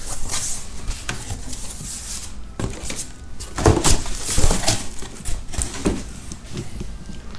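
Cardboard shipping box being opened by hand: flaps rustling and scraping as they are pulled back, in irregular bursts that are loudest around the middle. Near the end, plastic wrapping crinkles as a hand reaches into the box.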